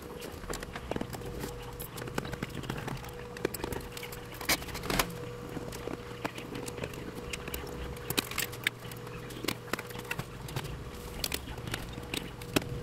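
Irregular clicks and taps of a long thin screwdriver prying at the clips of an LCD panel's front frame, over a faint steady hum.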